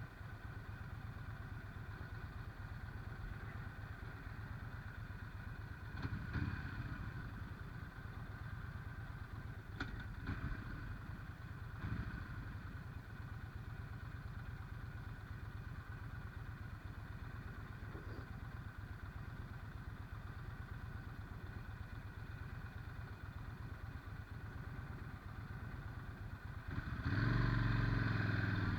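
Yamaha Stryker's V-twin engine idling steadily, with a few brief knocks. Near the end the engine revs and gets louder.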